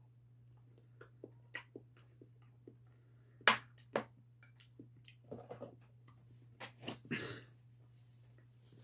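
Close-up eating sounds: small wet clicks of chewing soft cream cake. About halfway through come two sharp clacks as the spoon and ceramic bowl are set down on the table, then paper tissue rustles in a few short bursts as the mouth is wiped.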